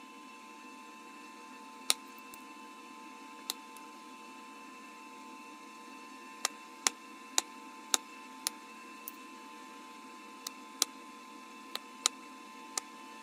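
About a dozen sharp, irregular clicks and snaps of bottle glass being flintknapped, flakes breaking off the glass of a Bud Light Platinum bottle, most of them in the second half. A faint steady whine of a few high tones runs underneath.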